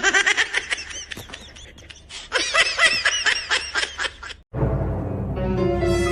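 High-pitched giggling laughter in quick bursts, with a short pause in the middle. It cuts off about four and a half seconds in, and background music follows.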